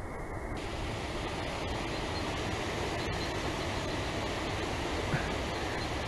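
Steady, even rushing background noise outdoors, with no distinct sound standing out apart from a faint click about three seconds in.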